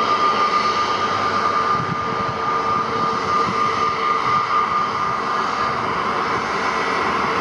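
Jet airliner's engines running, a steady high whine over a loud rushing noise; the whine eases a little about halfway through.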